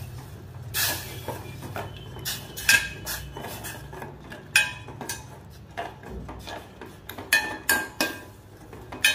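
Steel ladle clinking and scraping against a stainless steel saucepan as lumps of jaggery are stirred into water to dissolve them: irregular metallic clinks, some ringing briefly, over a low steady hum.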